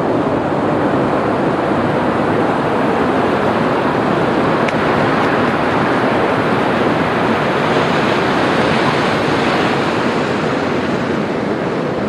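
Waves breaking on a sandy shore and washing up the beach as foam: a steady rush of surf.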